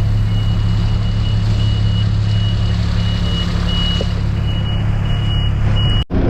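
Sidewalk snow-removal vehicle's engine running with a steady low drone while its reversing alarm beeps over and over. The sound cuts off abruptly near the end.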